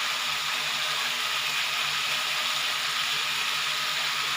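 Cut drumsticks, potato and brinjal sizzling steadily as they fry in hot oil in a kadai.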